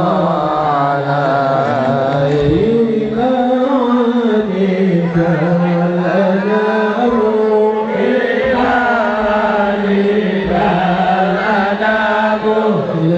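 A voice chanting an Islamic devotional song (sholawat) in long, slowly wavering, ornamented notes, held without a break.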